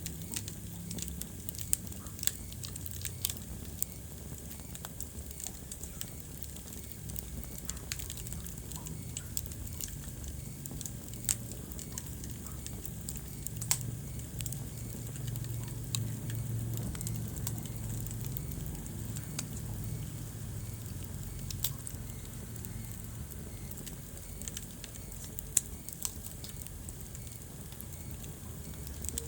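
Wood fire burning in a fireplace, crackling with irregular sharp pops over a low steady rumble, a few of the pops louder than the rest.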